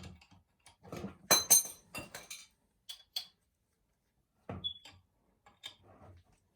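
Metal tools and oil-burner parts clinking and knocking by hand, with two loud ringing metal strikes about a second and a half in.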